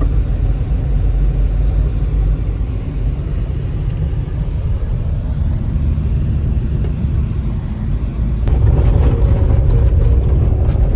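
A moving truck's road noise: a steady low rumble of engine and tyres. About eight and a half seconds in it grows louder and rougher, with rattling clicks.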